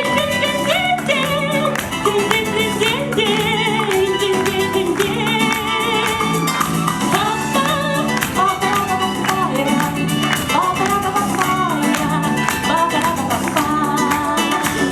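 Pop song accompaniment continuing after the last sung line: a melody line with vibrato over sustained chords and light percussion.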